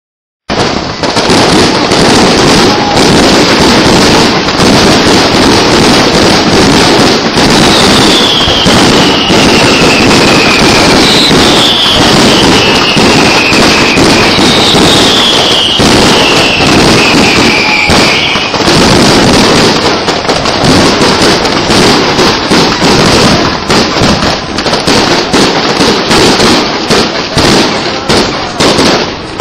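Fireworks display: a dense, loud, unbroken run of bangs and crackling that starts abruptly about half a second in, with three whistles falling in pitch, one after another, in the middle.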